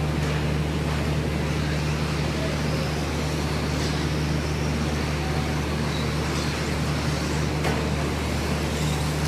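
Radio-controlled trucks racing around an indoor dirt track, their motors and tyres faint under a steady low hum in the hall. A single sharp knock comes near the end.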